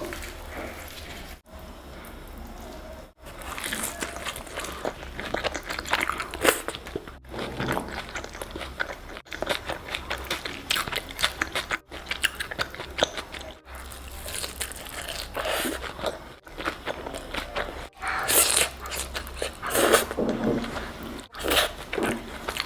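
Close-miked eating sounds: crunchy bites and chewing of food, with dense crackling clicks and louder crunches, cut by brief dropouts every second or two.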